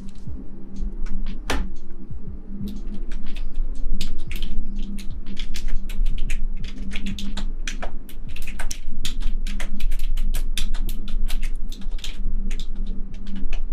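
Dense, irregular clicking and tapping close to the microphone, several sharp taps a second, over a steady low hum.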